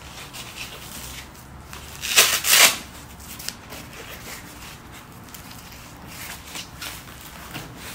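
Fabric ankle brace being strapped on by hand: straps and fabric rustling, with two short loud rasps a little over two seconds in as a strap is pulled tight.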